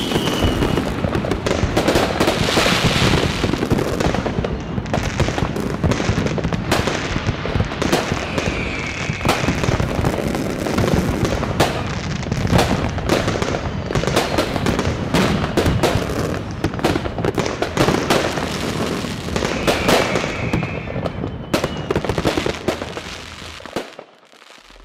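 Many fireworks and firecrackers going off at once: a dense, unbroken crackle of bangs and pops, with now and then a whistle falling in pitch. It dies away near the end.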